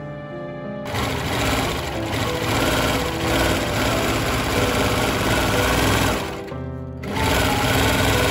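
Sewing machine running fast, stitching through fabric in two runs: it starts about a second in, stops briefly around six and a half seconds, then starts again. Background music plays underneath, heard alone at the start.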